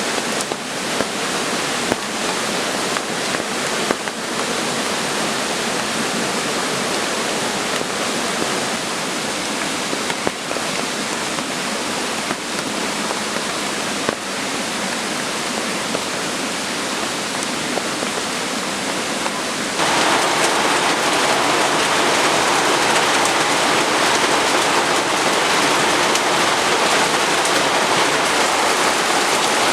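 Steady falling rain, a dense even hiss of drops with an occasional tick. About two-thirds of the way through it steps up suddenly to louder, heavier rain.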